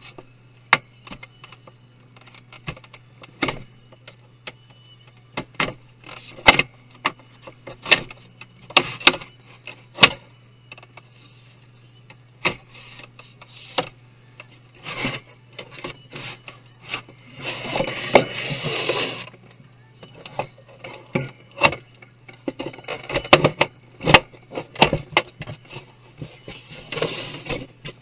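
Parts and tools of a Lenovo F0EU003GJP computer being handled during disassembly: irregular clicks and taps of plastic and metal, with two short stretches of scraping and rubbing, one about two-thirds of the way in and one near the end. A steady low hum runs underneath.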